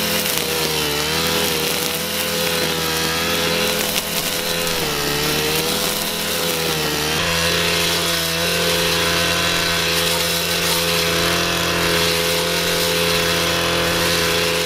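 Echo SRM-3610 brush cutter's two-stroke engine running at high speed while cutting tall, thick weeds. With the nylon line head its pitch dips and recovers under the load. About seven seconds in it switches to the three-tooth blade, and the engine note holds steadier.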